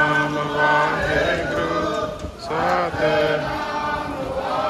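Chanted singing in long held notes over a low drone.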